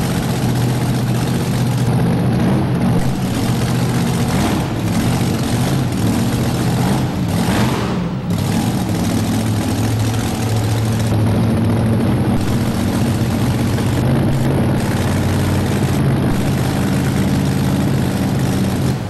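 Modified 2WD pulling truck's engine idling loudly and steadily while the truck sits stationary.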